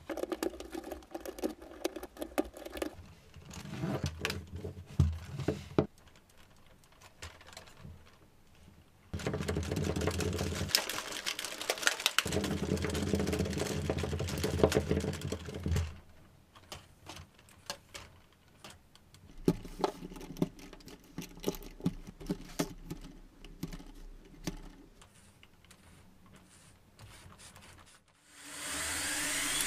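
Irregular clicking and rattling of small hard parts being handled, in bursts, with a denser stretch in the middle. Near the end a whine starts and climbs steeply in pitch and loudness as the Lego motors and propellers spin up.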